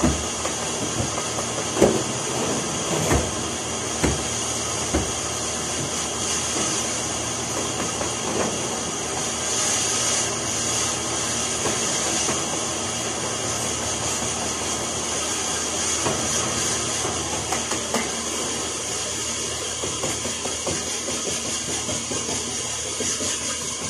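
Red canister vacuum cleaner running steadily with a constant hiss as its wand is worked over sofa upholstery by the window. A few short knocks in the first five seconds.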